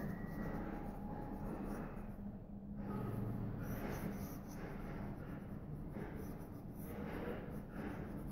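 Nakaya fountain pen's broad two-tone 18-karat gold Music nib scratching across paper in quick handwriting strokes, with a short pause about two seconds in.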